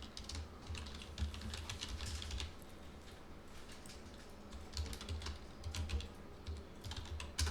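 Typing on a computer keyboard in several quick bursts of key clicks with a pause in the middle, as login details are entered.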